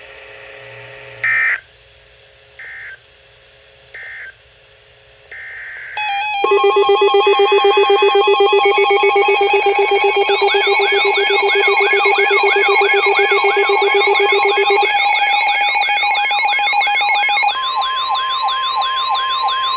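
Emergency Alert System signalling between two severe thunderstorm warnings: four short electronic data beeps, then, about six seconds in, a loud layered alert tone of steady tones with fast siren-like wails sweeping up and down. This signals the start of the next warning.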